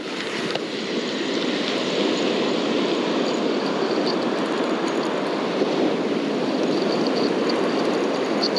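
Steady roar of breaking surf and wind on the microphone, with a faint, intermittent ticking from a spinning reel as slack line is reeled in.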